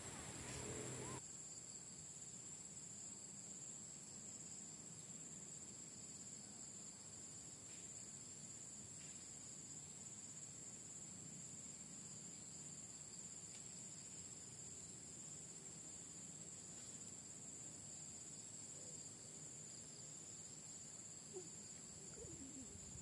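Insects chirring in a steady, high-pitched drone.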